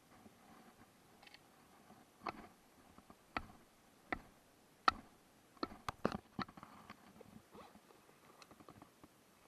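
Light knocks and clicks of objects being handled: four single sharp knocks about a second apart, then a quick flurry of them about six seconds in, trailing off into faint ticks.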